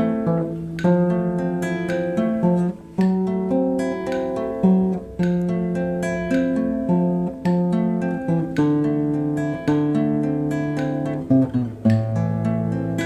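Background music: an acoustic guitar strummed and picked in a steady run of chords.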